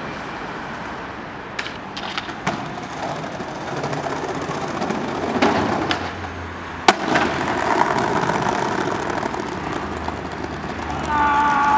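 Skateboard wheels rolling over paving tiles, with a few sharp clicks as the board is pushed and popped. A single loud crack comes about seven seconds in as the board slams down off a ledge, and the rolling carries on afterwards.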